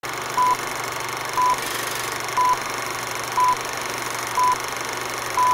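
Short electronic beeps, all at the same pitch, sounding evenly once a second, six times, over a steady hiss.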